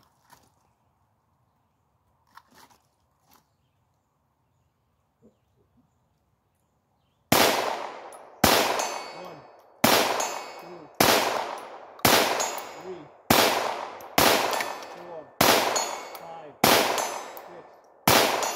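Ruger Mark IV .22 LR semi-automatic pistol firing ten slow, aimed shots, about one every 1.2 seconds, each with a long echo trailing off. The string starts about seven seconds in, after a few faint handling clicks. Seven of the ten shots hit a steel target at 65 yards.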